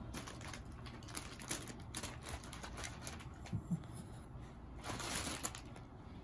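Light rustling and scattered soft clicks of a Shiba Inu stepping on a rug and a kitten moving inside a fabric cat tunnel, with a longer rustle about five seconds in.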